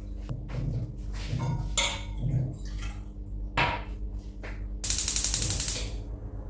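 Kitchen handling noises: a few scattered knocks and clicks, then a fast run of rattling clicks for about a second near the end, over a steady low hum.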